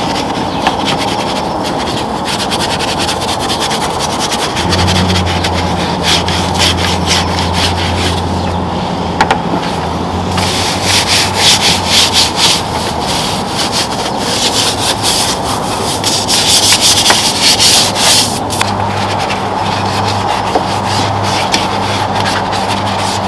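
Detailing brushes scrubbing foamed-up engine bay parts with quick back-and-forth bristle strokes, loudest in two spells around the middle and about three-quarters through.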